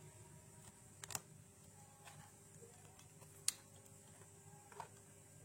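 A few sharp plastic clicks against near silence: a laptop's battery release latches being slid and the battery pack unclipped. Two come close together about a second in, the loudest about halfway through, and a faint one near the end.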